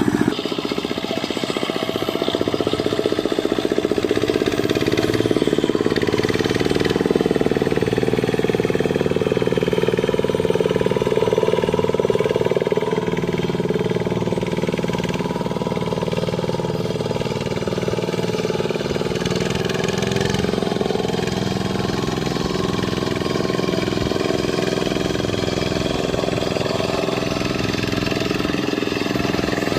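Single-cylinder Dongfeng diesel engine on a Quick Impala hand tractor, running steadily under load while working a rice paddy. The pitch drifts slightly but stays nearly constant.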